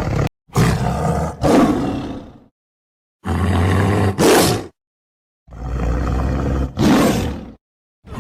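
Tiger roaring: three separate roars of about two seconds each, with dead silence between them, each ending in a louder final push.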